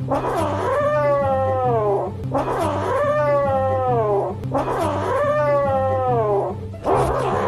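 Kitten giving long, drawn-out meows, three in a row of about two seconds each, every one falling in pitch, with a fourth starting near the end. Background music with a low repeating bass line runs underneath.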